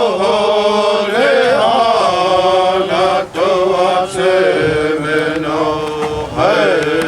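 Voice singing a Cheyenne prayer song in long held notes that glide between pitches, with short breaks between phrases.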